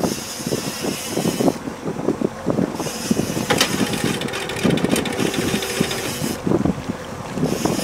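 Fishing reel working under load as an angler fights a fish on a bent trolling rod, clicking and whirring in several spells with short pauses between, over wind and water noise.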